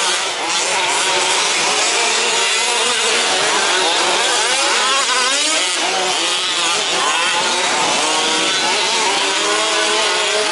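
Several 1/5th-scale two-stroke petrol RC trucks racing together, their small engines buzzing and revving up and down over one another as they accelerate and brake around the track.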